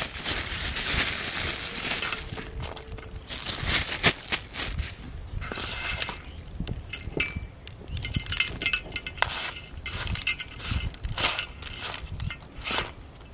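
Rice pouring from a plastic bag into a steel bowl with a rustling hiss. After about three seconds a hand takes over, crushing and mixing the rice with crumbled dry bait in the bowl: irregular crunching and rustling, with clinks of fingers against the metal.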